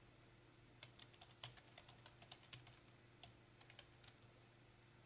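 Faint typing on a computer keyboard: a run of irregular keystrokes from about a second in to about four seconds in, over a faint steady hum.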